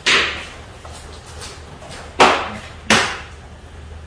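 Three short hissing squirts from an orange hand-pump sprayer of soapy water: one at the start, then two close together about two and three seconds in, each fading quickly.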